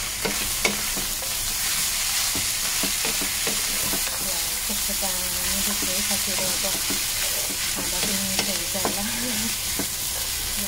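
Chowmein noodles, vegetables and sukuti sizzling in hot oil in a pan while being stirred and tossed with a spatula: a steady frying hiss broken by irregular scrapes and taps of the spatula against the pan.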